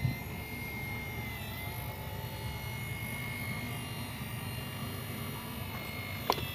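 Electric motor and gearbox of a radio-controlled Volvo EC480D excavator whining steadily as its upper body swings round. The pitch dips briefly about a second and a half in, and there is a sharp click near the end.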